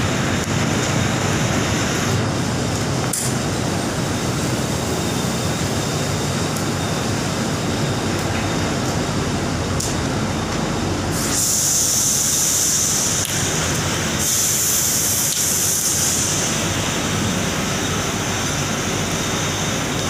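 Steady noise of a submerged arc furnace with flames burning through its charge during a shutdown. Twice, about halfway through, a louder high hiss lasts a second or two each time.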